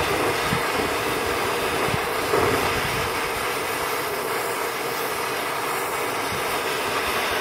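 Gas torch flame hissing steadily as it heats a copper water pipe joint up to soldering temperature, not yet hot enough for the solder to flow.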